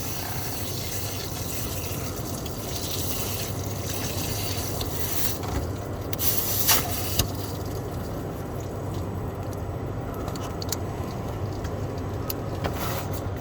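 Steady hum of the 2015 Iveco Daily's electric fuel lift pump running with the ignition on, priming fuel into the new fuel filter to bleed it. A few scrapes and knocks come about halfway through.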